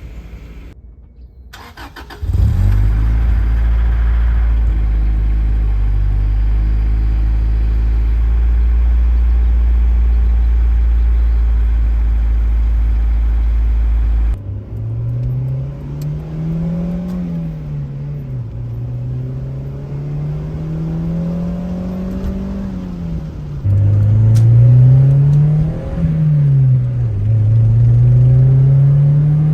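Acura Integra's four-cylinder engine through a Yonaka 2.5-inch cat-back exhaust, recorded on a phone. About two seconds in it comes in loud and holds one steady note for about twelve seconds. Then, after a cut, its pitch climbs and drops back several times, like a car accelerating in gear and shifting up.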